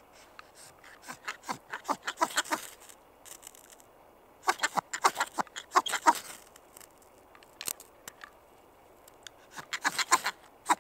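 Ferrocerium rod scraped hard with a knife, three bursts of quick rasping strokes, throwing sparks into a tinder bundle to light it.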